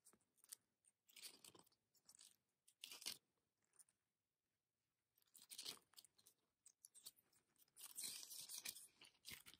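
Faint rustling of stiff card pages on a small spiral-bound photo book being flipped by hand, in short scattered bursts with a longer patch of handling noise near the end.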